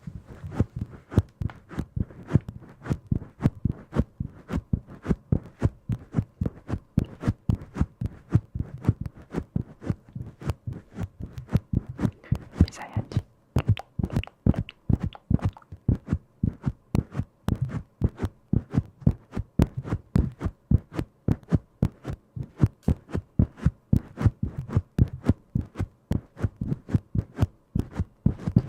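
Rapid soft tapping or knocking, several dull taps a second, kept up in a fairly even rhythm.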